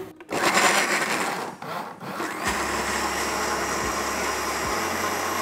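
Electric blenders, a Braun JB5160 jug blender and a Tefal BL142 mini blender, blending strawberries and milk into a smoothie. The motor sound is uneven for the first two seconds, dipping twice. From about halfway it settles into a steady whir with a thin high whine.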